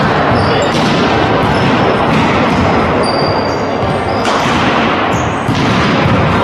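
Indoor volleyball rally in a sports hall: a few sharp hits of the ball, with brief high squeaks of shoes on the court, over loud steady hall noise.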